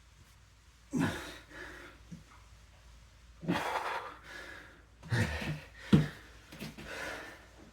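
A man breathing hard from exertion during a strength workout, with separate heavy exhales spaced a second or two apart. There is a short knock about six seconds in.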